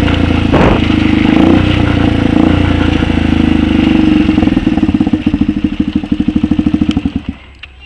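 Megelli 125m supermoto's single-cylinder engine running at low revs as the bike rolls to a stop, slowing into a loping idle with distinct firing pulses, then cutting out about seven seconds in. A short clunk sounds just under a second in.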